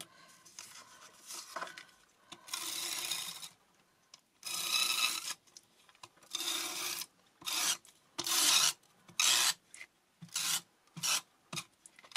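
Adhesive tape runner drawn along the edges of a paper panel, making a series of rasping strokes. The first three strokes last about a second each, and shorter, quicker strokes follow toward the end.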